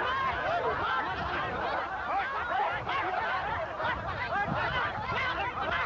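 A large crowd shouting and hollering together, many voices overlapping in a continuous clamour.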